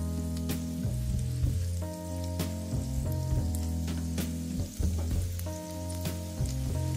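Chopped garlic and chillies sizzling in oil in a wok, with irregular sharp crackles, under background music with a steady bass line.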